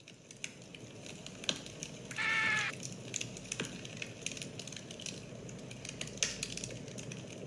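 Campfire crackling and hissing, with sharp irregular pops over a steady hiss. A short high-pitched call sounds once, about two seconds in.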